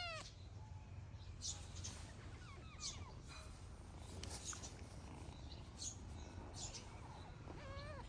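Cats meowing quietly, once about two and a half seconds in and again near the end, each call falling in pitch. Brief high bird chirps come scattered between them over a steady low hum.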